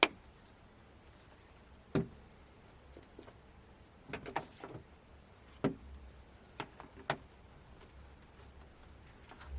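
A series of separate sharp knocks and clicks, as of small hard objects being handled and set down on a work surface: a loud one at the start, then single knocks at roughly one- to two-second intervals, with a short clatter of several clicks around the middle, over a faint low hum.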